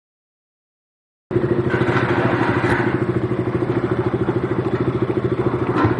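Motorcycle engine running steadily at a constant speed with an even, fast exhaust pulse, coming in abruptly about a second in. Two brief sharp knocks sound partway through and near the end.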